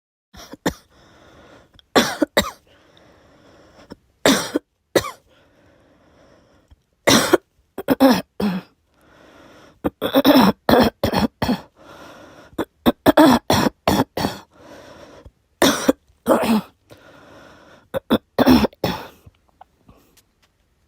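A girl coughing over and over: single coughs and quick runs of two to four, separated by short pauses, ending a little before the close.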